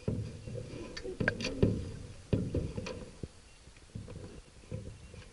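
Muffled underwater noise picked up by a submerged camera: low, uneven rumbling and knocking, with several sharp clicks about one to three seconds in.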